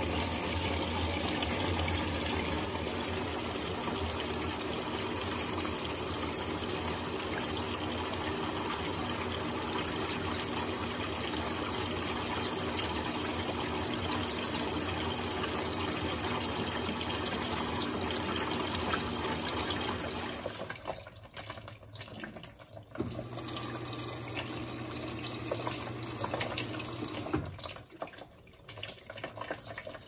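Water running into the tub of an Electrolux LAC17 top-load washing machine through its dispenser as it fills for the second rinse: a steady gushing flow that stops about twenty seconds in, leaving quieter, patchy sounds.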